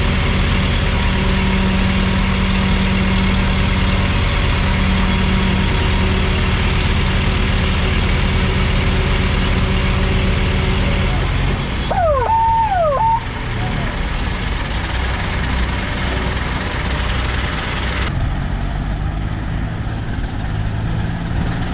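Diesel engines of ACE 12XW hydraulic cranes running in a steady, deep drone as they pull a loaded truck out of mud. About twelve seconds in there is a brief warbling, whistle-like tone.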